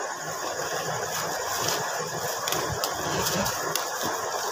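Plastic wrapping and a cardboard shoebox rustling and crinkling as a new shoe is lifted out, with a few sharp crackles, over steady background noise.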